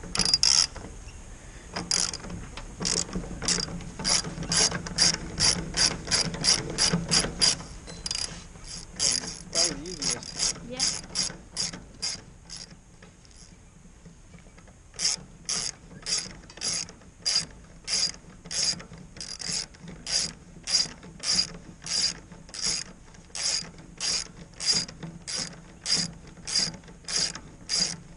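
Socket ratchet wrench on an extension clicking stroke after stroke as a nut is backed off. The clicks come quickly for the first several seconds, stop for a couple of seconds near the middle, then return slower and even, about two a second.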